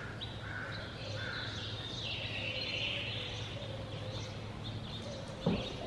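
Birds chirping over a steady low background hum, with one sharp click about five and a half seconds in.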